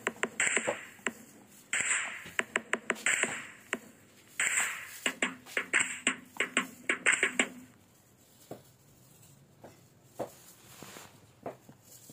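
Kitchen knife chopping vegetables on a wooden cutting board: quick, uneven taps of the blade on the board. The chopping stops about seven and a half seconds in, leaving only a few scattered taps.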